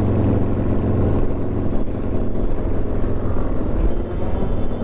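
Many motorcycle engines running together at low speed in a dense mass ride, a steady low rumble with no single bike standing out.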